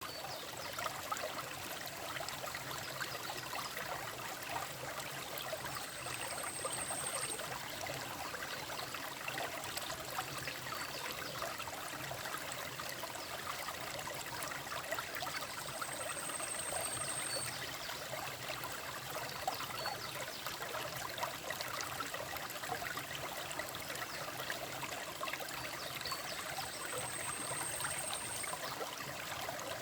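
Mountain valley stream running over rocks, a steady rush of water. A faint, high rising whistle sounds three times, about ten seconds apart.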